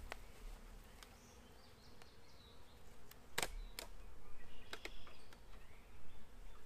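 Honeybees buzzing faintly around an opened hive, with a few light clicks and knocks from the wooden Warré hive parts being handled. The sharpest click comes about three and a half seconds in.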